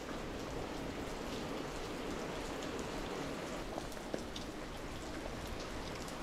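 Steady rain falling, an even hiss with scattered small ticks of drops striking a surface.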